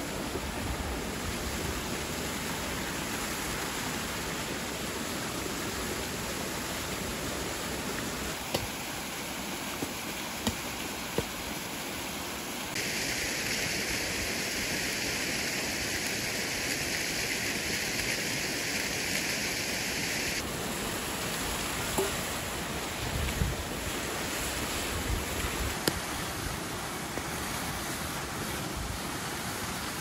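Steady rush of a waterfall and creek, turning hissier for several seconds in the middle, with a few short knocks scattered through it.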